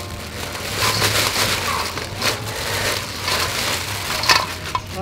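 Thin plastic bag crinkling and rustling as it is handled and pulled off a steel bowl of river prawns, with irregular crackles and one sharper crackle about four seconds in.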